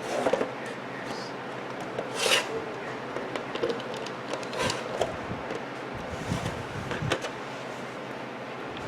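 Irregular light knocks, clicks and rubbing as a new battery clock movement is handled and fitted into the back of a wall clock.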